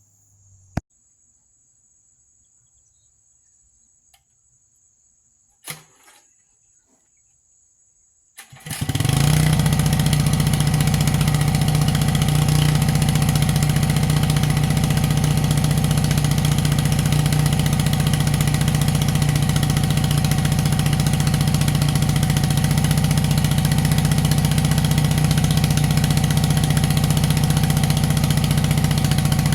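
Predator gas-powered water transfer pump's small engine starting about nine seconds in, after a few isolated knocks, then running steadily and loudly at a constant speed.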